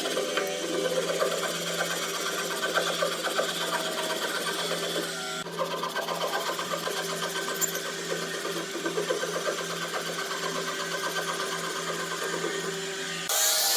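A small electric tool motor running with a fast, even chatter and a steady hum. It stops briefly about five and a half seconds in, starts again, and cuts off just before the end.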